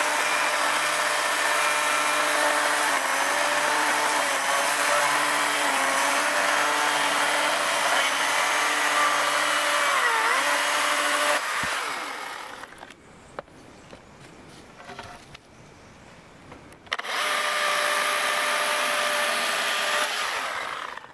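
Electric chainsaw running and cutting through thin poles. Its motor whine dips in pitch under load about ten seconds in. It stops for about five seconds, then runs again for a few seconds near the end.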